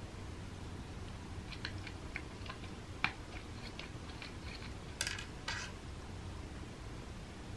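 Dry kibble clicking against the plastic tray of a treat-dispensing feeder as a cat eats from it: a run of small sharp clicks, then two louder rattles about five seconds in.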